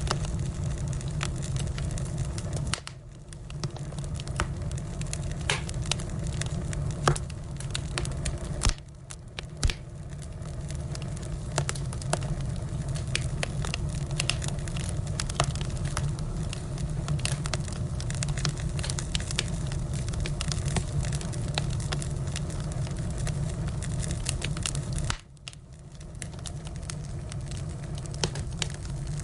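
Firewood burning: steady crackling with many scattered sharp pops over a low, even rumble. The sound drops away briefly three times before picking up again.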